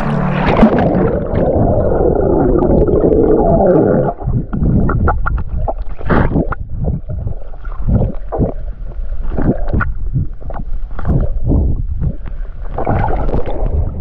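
Sea water heard through a submerged camera microphone as a man swims. Muffled sloshing and rushing water for about four seconds, then irregular underwater bubbling and gurgling.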